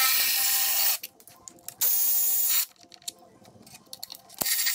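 Cordless power ratchet running in short bursts of about a second each, three times, spinning bolts out of a Subaru EJ205 engine as it is torn down.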